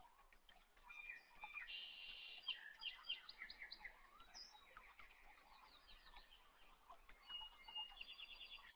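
Faint birds chirping: short high notes repeated in quick series, busiest a couple of seconds in and again near the end.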